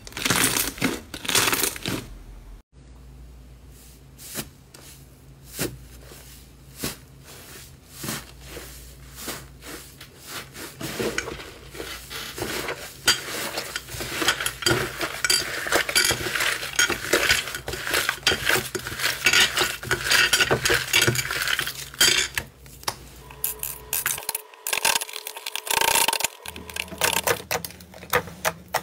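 Hands squeezing, kneading and pressing slime, making a steady run of sticky clicks, pops and crackles that grows densest in the middle. Several slimes are worked in turn, with short breaks between them.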